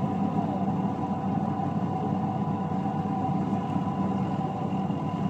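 Off-road race buggy engine idling steadily.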